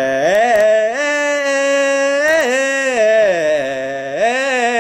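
One voice chanting in a slow, sung style, holding long drawn-out notes that step up and down in pitch with a slight waver and smooth glides between them.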